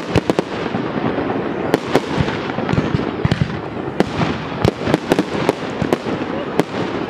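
Aerial fireworks display: shells bursting in rapid succession, about twenty sharp bangs, some in quick clusters, over a continuous din.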